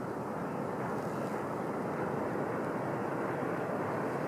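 A steady distant vehicle rumble that grows slowly a little louder, with no distinct tones.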